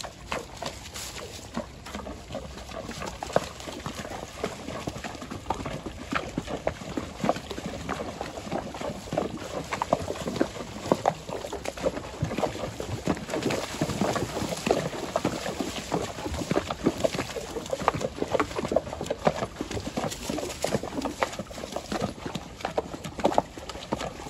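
Horses walking through a shallow, rocky creek: hooves splashing in the water and knocking on the stones in an uneven run of steps. The splashing grows louder and busier after the first few seconds.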